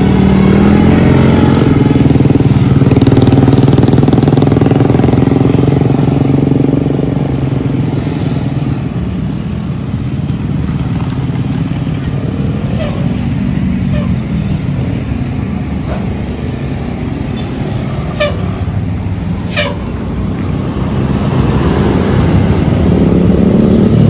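Steady passing traffic of motorcycles and cars on a hill road, engines running. It is loudest at the start, eases off in the middle and builds again near the end as a bus comes up the road.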